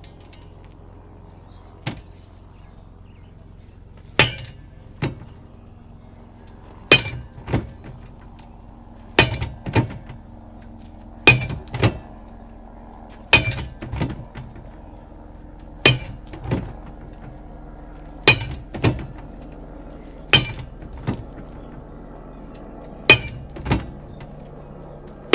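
A bat hitting a softball tethered to a pole-mounted swing trainer, nine sharp cracks every two to two and a half seconds, each followed by a lighter knock under a second later.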